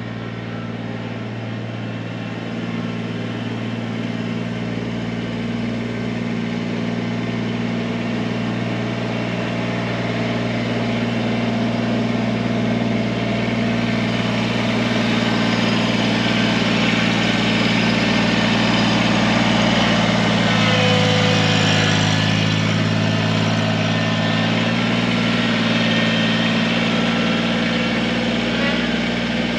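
Kubota BX23S compact tractor's three-cylinder diesel engine running steadily at idle as it warms up. Its note shifts briefly about two-thirds of the way through.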